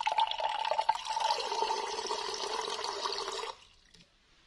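Water running from a bottled-water dispenser into a glass cup, a steady filling rush that stops sharply about three and a half seconds in.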